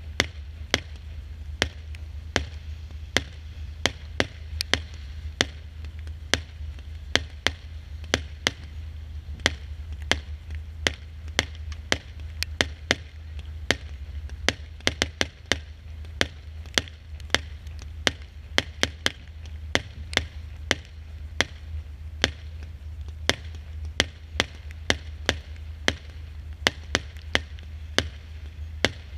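Consumer firework battery (cake) firing shot after shot, each a sharp pop or bang, irregular at about two a second, over a steady low rumble.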